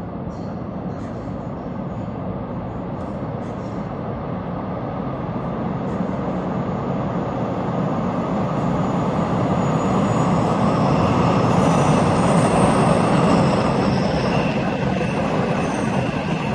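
Taiwan Railway EMU3000 electric multiple unit running through a station, its rumbling running noise growing steadily louder as it comes on. About ten seconds in, a steady high-pitched whine joins the noise.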